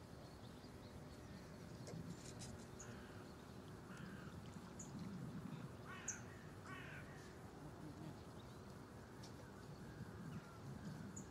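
A crow cawing twice in quick succession, about six seconds in, faint and outdoors. A few short, high chirps of small birds are scattered through.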